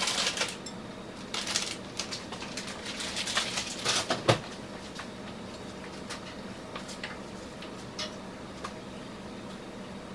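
Utensils clinking and tapping against plates and a skillet as food is served: a busy run of light knocks in the first four seconds, then only occasional taps.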